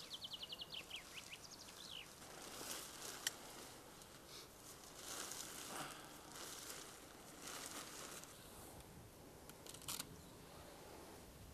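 Faint rustling of an MSR Hubba NX tent's nylon rainfly being draped and fastened, in short bursts, with a sharp click about three seconds in and another near ten seconds. A small bird sings a quick high trill during the first two seconds.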